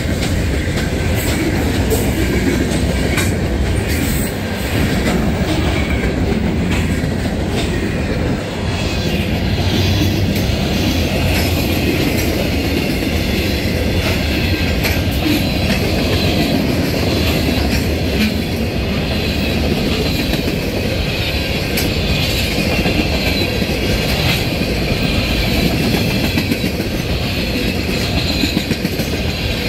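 Freight cars rolling past close by: a steady rumble of steel wheels on rail with repeated clicking as the wheels cross the rail joints. In the second half a faint high wheel squeal wavers above the rumble.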